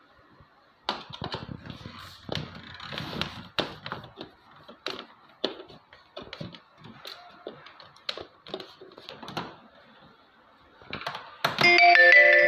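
Hard plastic cover of a Livpure Touch Alkaline water purifier giving irregular clicks and knocks as it is handled and pried at its edge with a screwdriver. Music starts near the end.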